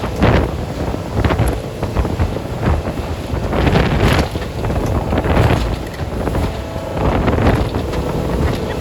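Motorboat under way with wind rushing over the microphone, swelling and falling every second or so, over a faint steady engine tone.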